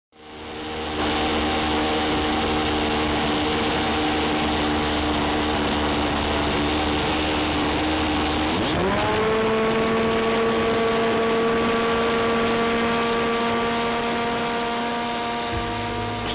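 Radio-control model airplane's small engine running at a steady note, then throttled up about halfway through with a quick rise in pitch, holding the higher steady note for the takeoff run.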